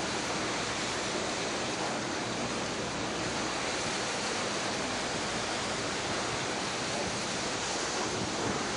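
Steady rushing noise of wind and sea at an even level, with no engine tone or sudden sounds standing out.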